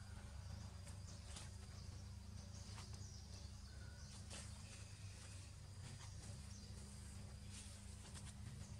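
Faint forest ambience: a steady low rumble under a thin, steady high insect tone, with scattered soft clicks.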